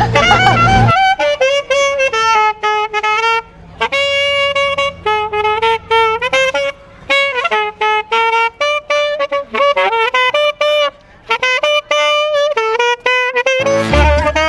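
A single wind instrument plays a jazz melody alone, in short phrases with brief gaps between them. Lower accompanying instruments sound only in the first second and come back in just before the end.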